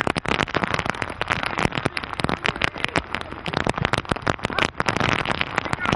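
Rain pattering on the camcorder's microphone: a dense, irregular crackle of many small hits a second.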